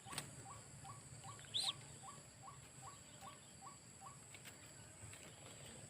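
A faint short call repeated evenly about two and a half times a second, which stops about four seconds in: the rhythmic calling of a white-breasted waterhen. A single high chirp about a second and a half in, a click near the start, and a steady high insect whine behind.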